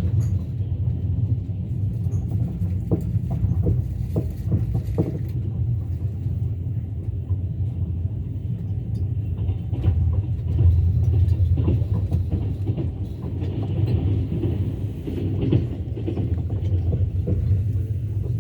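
Moving train: a steady low rumble with the clatter of wheels over the rail joints, including a run of sharp knocks about three seconds in.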